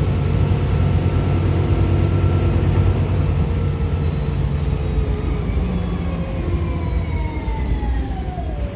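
Interior of a Wright Pulsar single-deck bus on a VDL SB200 chassis under way: steady low engine drone with a whine from the Voith automatic gearbox that falls in pitch over the last few seconds as the bus slows.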